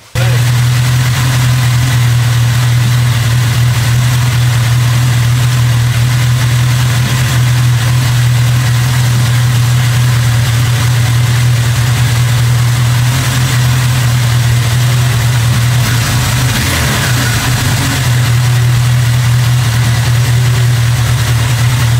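Suzuki GSX1100 Katana's air-cooled inline-four engine idling steadily on its first run after a total rebuild.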